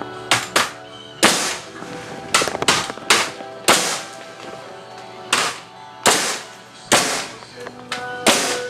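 Background music with about a dozen sharp knocks or bangs scattered irregularly through it, several trailing off in a short rushing noise.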